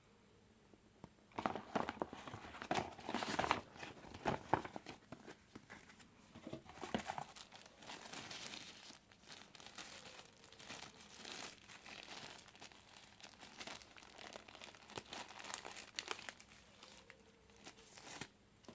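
Packaging from a newly unboxed phone being handled, rustling in irregular bursts with short pauses between them.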